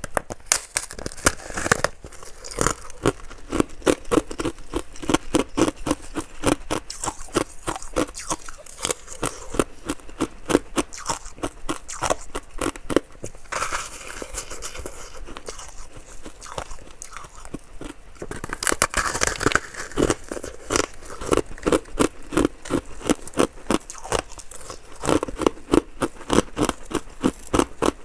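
Ice being bitten and chewed close to the microphone: a steady run of crisp crunches, a few per second. The crunching eases off for a few seconds past the middle, then comes back loud.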